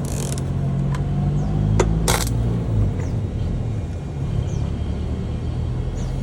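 Stick welding electrode struck against a steel flange: a few short crackling arc bursts, the loudest two about two seconds in, over a steady low machine hum. The electrode keeps sticking instead of holding an arc.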